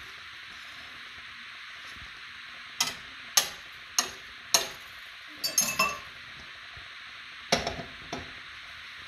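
Scrambled eggs sizzling in a stainless frying pan on a gas burner as a steady hiss. A wire whisk is knocked four times on the pan's rim, then clinks into a glass measuring cup, and near the end the pan's lid clatters onto the pan.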